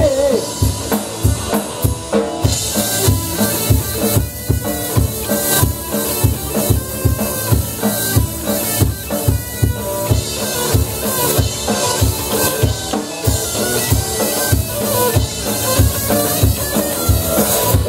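Live rock band playing an instrumental passage: a drum kit keeps a steady beat on bass drum and snare under bass and guitar, with cymbals coming in about two and a half seconds in.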